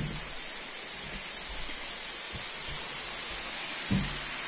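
Steady hiss of a heavy downpour falling on the roofs and ground, with a short low thump near the end.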